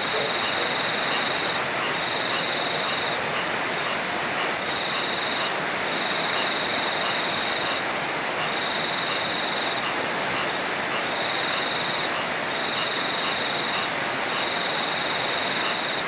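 Heavy rain and a flowing river making a steady, even hiss. Over it, a thin high trill comes in phrases of one to two seconds with short breaks.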